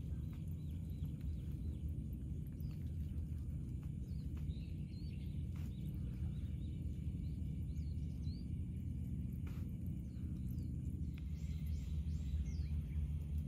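Outdoor ambience: a steady low rumble with faint, scattered bird chirps and a couple of light clicks, and a short run of louder bird calls about eleven seconds in.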